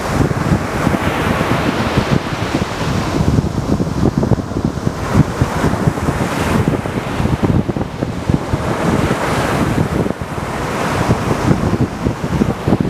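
Mediterranean surf breaking on a beach, waves swelling and washing in every few seconds, with heavy wind buffeting the microphone.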